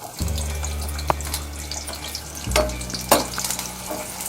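Onions sizzling in hot oil in a kadai, with sharp clicks of stirring against the pan now and then.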